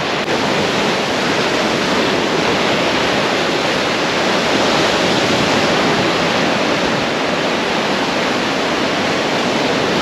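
Rough sea surf breaking on rocks and around the jetty, a loud, steady rush of water without letup.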